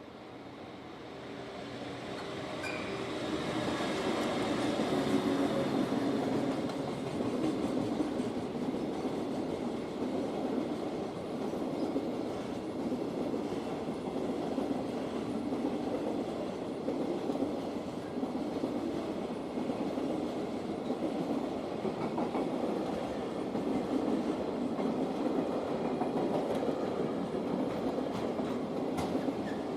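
A long container freight train passing close by, its wagons' wheels running continuously over the rails. The sound builds over the first few seconds as the train arrives, then holds steady as wagon after wagon goes by.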